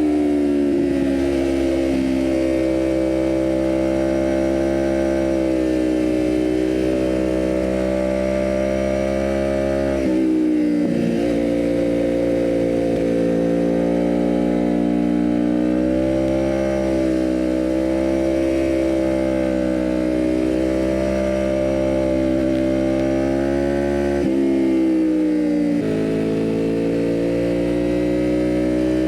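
Kawasaki Ninja 400 parallel-twin engine through a full aftermarket exhaust with the catalytic converter removed, running under way with a steady, buzzy note. The pitch holds or climbs slowly, breaking and shifting about ten seconds in and again twice near the end.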